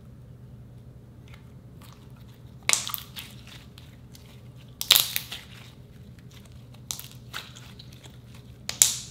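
Glossy pink slime being squeezed and folded by hand, giving a few sudden sharp pops and crackles. The loudest come about three, five and nine seconds in, with weaker ones between.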